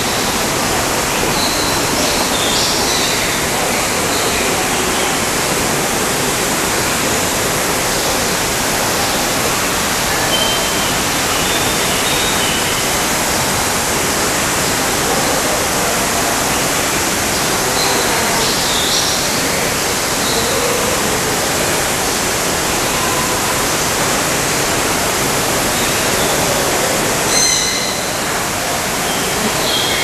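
Steady rush of falling water, with a few faint high chirps now and then.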